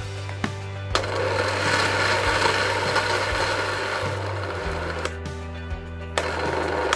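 Electric food chopper running, its lid held down by hand, mincing raw beef and ice with coarse salt and baking powder into smooth meatball paste. It starts sharply about a second in and runs for about four seconds.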